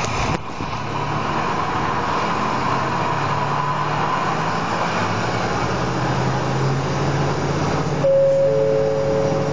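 Diesel railcar running along the line, heard from inside the passenger car: a steady low engine hum over the rumble of the wheels on the rails. About eight seconds in a steady two-note tone sounds over it.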